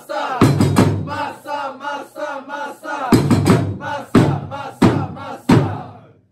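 Football supporters chanting a player's chant in unison, with heavy drum beats underneath. The chant fades away about six seconds in.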